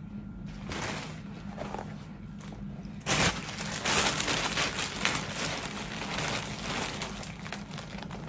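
Soft fleece blanket rustling as it is handled and draped over a person. It is faint at first and gets louder and busier about three seconds in.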